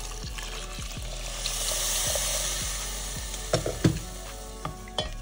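A glass of water poured into a hot pressure cooker of sautéed vegetables, chana and dalia, sizzling and hissing, louder for a second or two as the water goes in. Two sharp knocks about three and a half seconds in.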